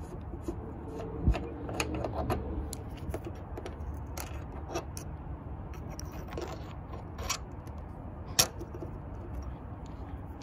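Small steel wiper pivot parts on a school bus handled by hand: scattered metallic clicks, clinks and scrapes as the pivot shaft is worked and the wiper arm fitting goes onto it. There is a duller knock about a second in, and the sharpest click comes about eight seconds in.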